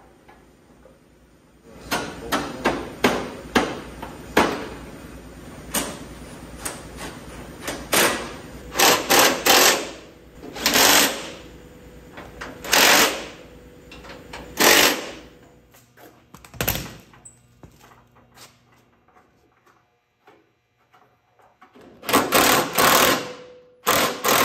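Cordless impact driver running a socket in repeated short bursts as it drives and tightens bolts on a tractor's front bumper mounting, with a pause after the first run of bursts and a few more near the end.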